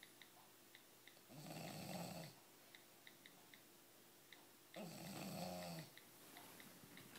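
British bulldog snoring in her sleep: two long snores about three and a half seconds apart, each lasting about a second.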